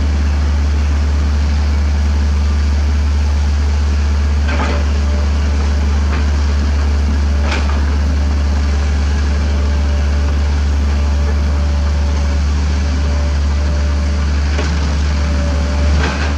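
Kobelco SK75 mini excavator's diesel engine running steadily while it digs limestone, with a few sharp knocks of the bucket on rock.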